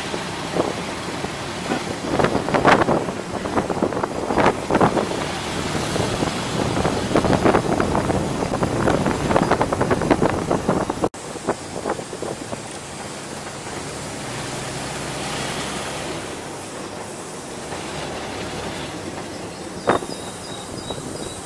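Ride noise from inside the open passenger cab of a tuk-tuk in city traffic: engine, road and wind noise with many knocks and rattles. About eleven seconds in it breaks off and goes on quieter and steadier, with one sharp click near the end.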